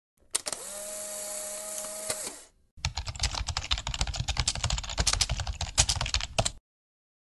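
Sound effects for an on-screen loading bar. First a steady electronic hiss with a faint hum lasts about two seconds. After a brief gap, rapid irregular computer-keyboard typing clicks run for about four seconds and cut off suddenly.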